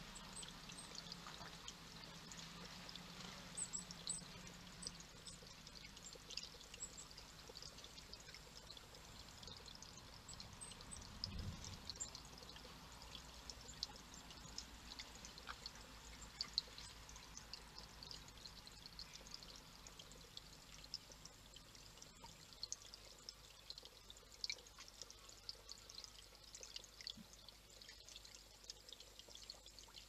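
Small garden rock fountain trickling steadily into its stone pool, faint, with many small splashes and drips through it.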